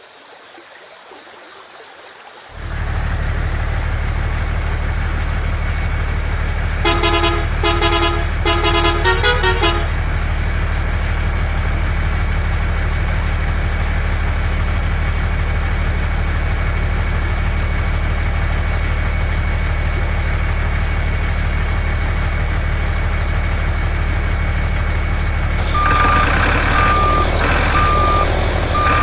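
Truck engine running steadily, with a short tune of horn toots from about 7 to 10 seconds in. Near the end, reversing beeps start, repeating about once a second.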